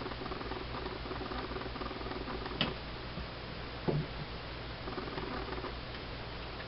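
Plastic parts of an Xbox 360 wireless controller being handled and fitted together: light scratching and rubbing, with two sharper clicks about two and a half and four seconds in, over a steady low electrical hum.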